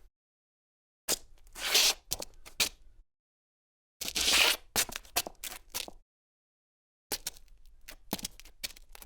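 Three short, separate footstep sound effects, each about two seconds long with dead silence between them. The first two open with a longer scraping scuff and then several sharp steps; the third is a run of sharp steps.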